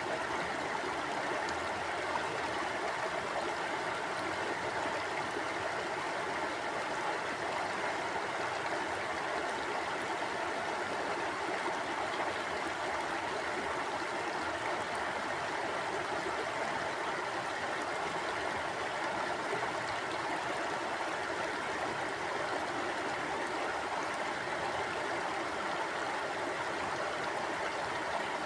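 A river or stream flowing steadily over rocks, a constant rushing and gurgling of water.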